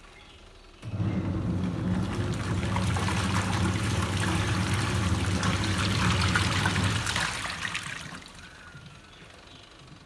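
Godrej twin-tub washing machine's wash tub agitating: the pulsator motor starts with a hum about a second in and churns soapy water and clothes, then winds down to a pause near the end, the start-stop rhythm of a semi-automatic wash cycle.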